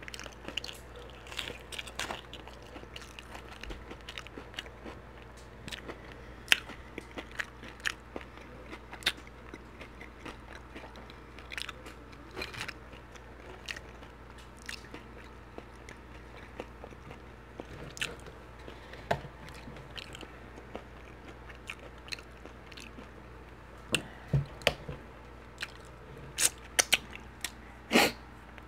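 Close-miked chewing of Flamin Hot Cheetos-crusted fried halibut, with irregular crisp crunches throughout and a few louder sharp clicks near the end.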